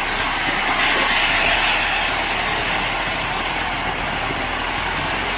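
Ready-mix concrete truck running steadily while it pours, a continuous rushing noise that is strongest a second or two in. A short hiss sounds right at the start.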